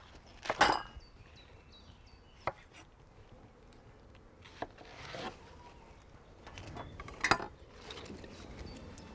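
Cookware and utensils clinking and knocking a handful of separate times while food is handled at a grill. The sharpest knocks come about half a second in and about seven seconds in.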